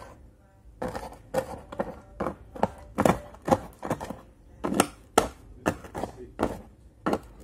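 A rapid, uneven series of sharp knocks or taps, roughly two to three a second.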